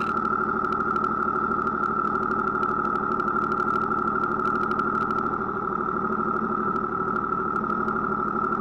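Snowmobile engine idling steadily at an even pitch, without revving.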